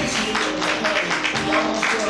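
Music with fast, closely spaced percussive strikes over held tones.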